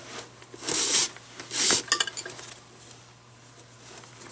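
Leather glove lace being pulled through the lacing holes of a baseball glove: two quick pulls, each a short hissing rub, then a few light clicks.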